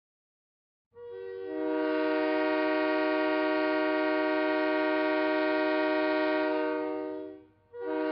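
Locomotive air horn sounding a chord of several notes that come in one after another: one long blast of about six seconds, then a short break and a second blast starting just before the end.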